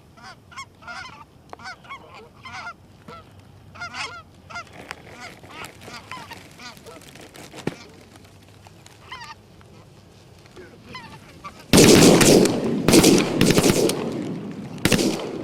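Geese honking repeatedly, a flock calling; about twelve seconds in, a rapid volley of shotgun blasts, five or six shots within about three seconds.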